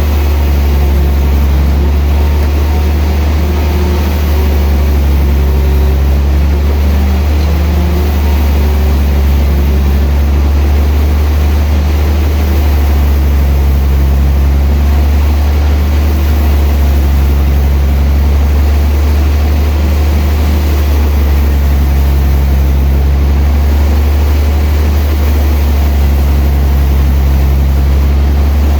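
Sawmill machinery running steadily for the whole stretch: a loud, deep, constant hum with fainter tones above it that shift every few seconds.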